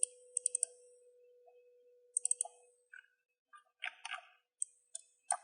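Computer mouse clicking: short sharp clicks, some single and some in quick runs of two or three, spread through a few seconds.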